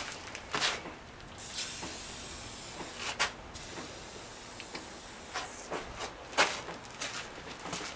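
WD-40 aerosol can spraying onto a milling machine's table and vise: a steady hiss lasting about two seconds, then a brief second squirt. Scattered clicks follow, with a sharp knock about six seconds in.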